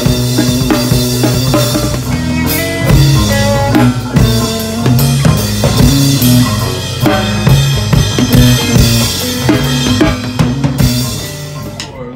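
Band playing rock music with a drum kit close up, kick, snare and cymbals hit hard over a steady bass line. The playing thins out and drops in level near the end.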